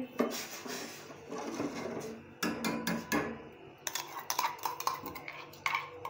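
Metal spoon stirring sugar into water in a stainless steel saucepan, scraping along the pan at first, then clinking sharply against it in scattered knocks through the middle and near the end.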